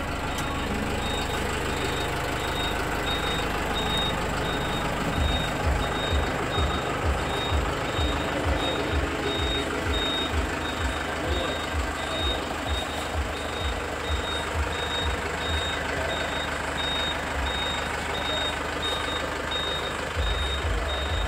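Vehicle reversing alarm beeping steadily, a high tone about twice a second, over a low rapid thumping in the middle of the stretch.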